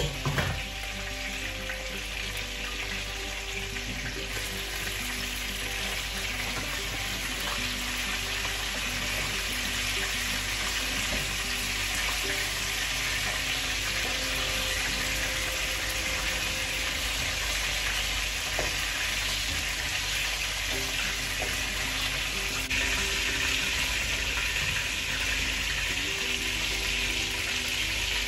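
Meatballs frying in hot oil in a frying pan: a steady sizzle that grows a little louder near the end, with wooden tongs now and then turning them in the pan.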